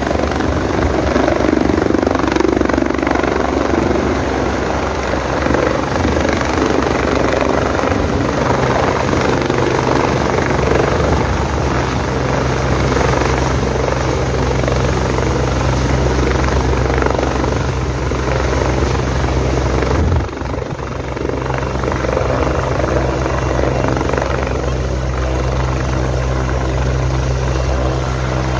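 Large helicopter hovering low and setting down on a helipad, its rotor and turbine engines running with a steady loud drone and low pulsing hum. The level drops suddenly for a moment about two-thirds of the way through, then the drone carries on.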